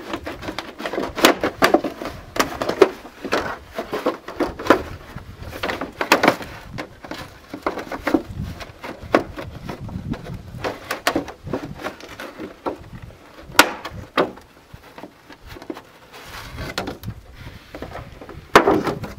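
Tin snips cutting through a thin plastic plant pot: a long run of sharp, irregular snaps and crunches as the blades bite through the plastic, thinning out with a lull a little past halfway.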